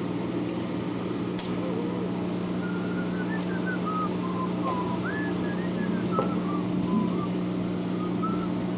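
Steady low hum with a person faintly whistling a wavering tune, starting about three seconds in.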